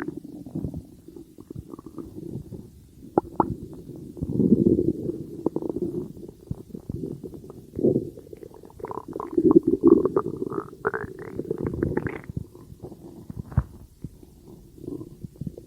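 Stomach growling: irregular low rumbles and gurgles that swell and fade in waves, with a run of higher, bubbling gurgles past the middle.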